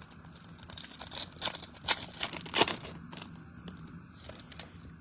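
Foil trading-card pack wrappers crinkling and tearing as packs are opened by hand, with irregular crackles that thin out after about three seconds.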